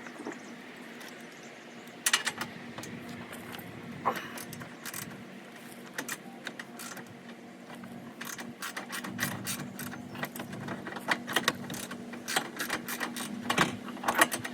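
Hand tool on an extension clicking and clinking against metal as a bolt is turned by hand, the clicks irregular and coming faster in the second half, over a steady low hum.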